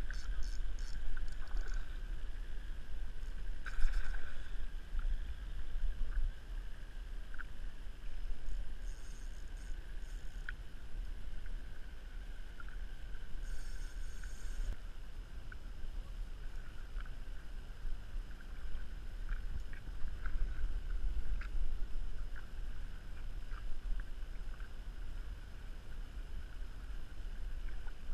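Water lapping against a plastic kayak hull, with a steady low rumble of wind buffeting the microphone and a few small clicks and short hissing bursts.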